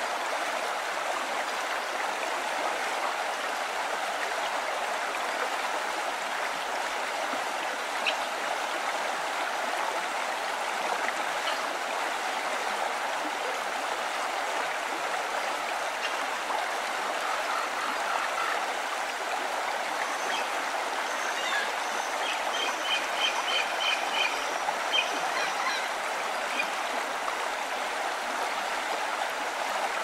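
Stream water flowing steadily with a constant rushing trickle. Bird calls sound over it, including a quick run of repeated high notes about two-thirds of the way through.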